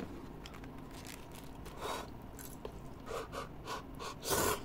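A person eating instant cup noodles: short chewing and mouth sounds, coming quicker in the last second and a half, with the loudest near the end.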